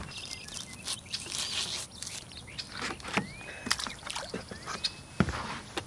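Knocks and water sloshing as a catfish is lifted out of a cooler by hand. A bird calls twice with short rising whistles.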